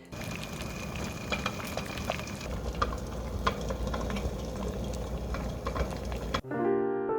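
Radish juice boiling down into syrup in a pot, a steady bubbling with frequent small pops. Piano music comes in about a second before the end.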